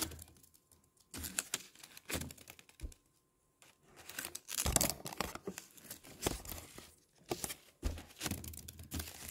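Folded colour-paper origami spinning tops being handled on a plastic-covered tabletop: paper rustling and crinkling with irregular taps and scrapes.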